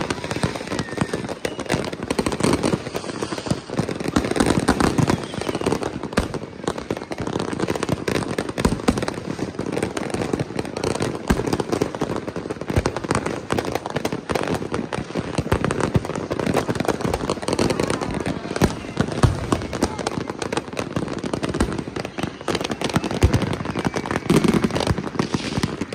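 Many fireworks going off at once: a dense, unbroken crackle of pops and bangs with no pauses.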